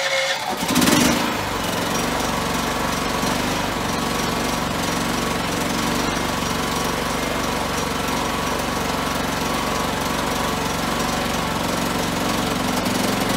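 A Champion 9000-watt inverter generator's 420 cc engine, fuelled with propane through a conversion-kit regulator, catches from electric-start cranking within the first second. It then settles into a steady run.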